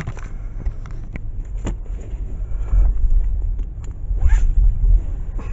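Low rumble inside a car's cabin, swelling louder twice in the middle, with scattered clicks and rustles from things handled close by.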